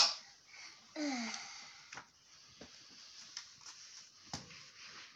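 A child's cough cutting off at the start, then a breathy groan falling in pitch about a second in, followed by a few faint taps.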